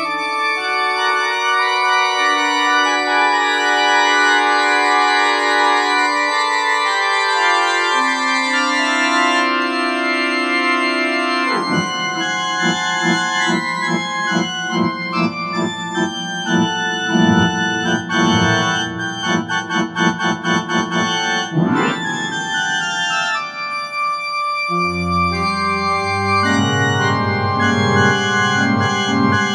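Organ and piano music. Held chords open it; about twelve seconds in a dense passage of fast repeated low notes takes over, and near the end it settles into broad held chords over a deep bass.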